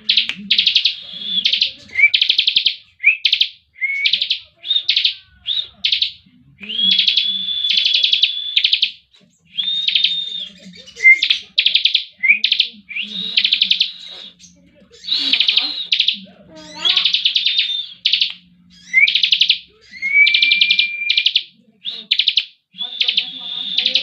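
Bar-winged prinia (ciblek kristal) singing in its rapid rattling 'ngebren' style: burst after burst of fast buzzy trills, each under a second, with short gaps and now and then a thin held whistle.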